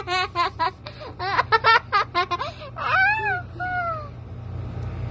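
A young child giggling: a quick run of short, high laughs, then a few drawn-out falling voice sounds about three seconds in.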